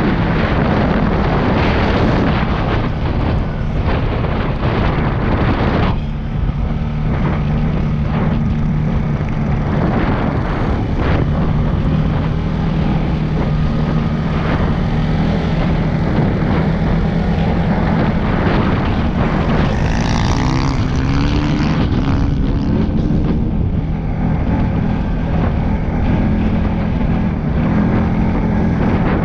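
CFMOTO CFORCE 625S ATV engine running steadily under throttle at riding speed, with heavy wind rushing over the helmet microphone. The engine pitch rises and falls around twenty seconds in as the throttle changes.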